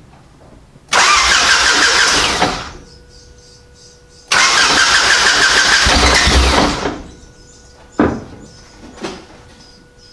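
Lifted Honda Civic's freshly reinstalled engine being cranked over twice, once for about a second and a half and then for about two and a half seconds, without settling into a run; the owner suspects it may have been left in gear. A short sharp knock follows near the end, then a fainter one.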